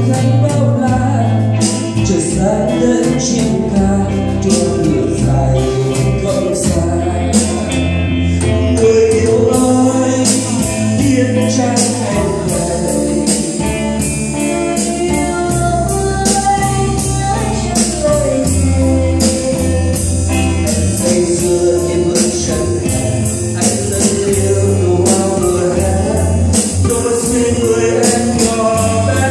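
Live amplified band rehearsing a Vietnamese song: a man and a woman sing into microphones over an electronic drum kit, bass guitar, electric guitar and keyboard, with a steady beat of cymbal ticks.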